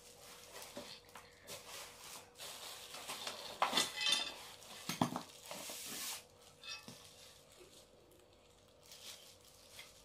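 Plastic wrapping rustling and crinkling as microscope parts are handled in their foam packaging, with a few knocks and clinks, busiest and loudest in the middle and quieter after about seven seconds. A faint steady hum runs underneath.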